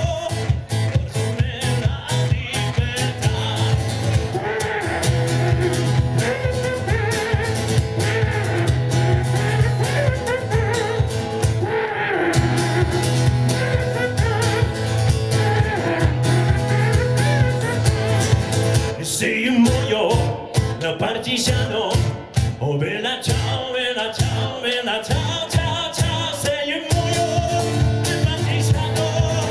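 A man singing live to his own strummed acoustic guitar. About two-thirds of the way through, the strumming thins out for several seconds, then the full strum comes back near the end.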